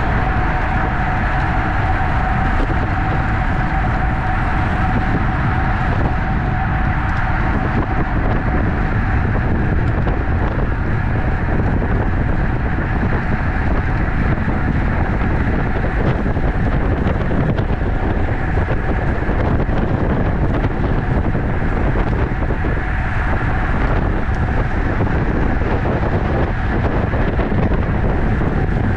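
Steady, loud wind rushing over the microphone of a camera on a racing bicycle at speed, with a faint steady whine that fades out about eight seconds in.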